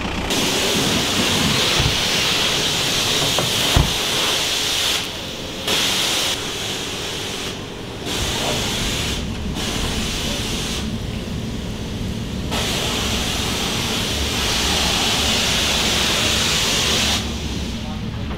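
High-pressure washer spray hissing in a self-service car wash, breaking off briefly several times and stopping near the end. A single sharp knock about four seconds in.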